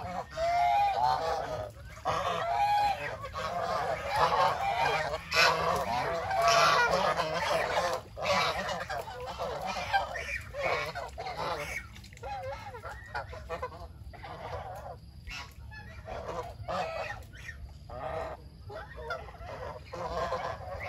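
A flock of domestic geese honking, many calls overlapping. The calling is dense and loud through the first half and thins out to scattered, quieter honks after about twelve seconds.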